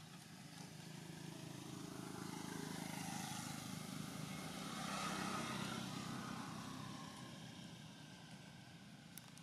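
A motor vehicle passing by: its engine hum and road noise swell to their loudest about five seconds in, then fade away.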